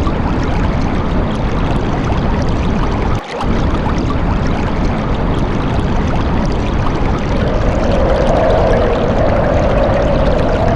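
Steady heavy rain with wind, a dense rushing noise that briefly dips about three seconds in. In the second half a hollow wind howl rises slowly in pitch.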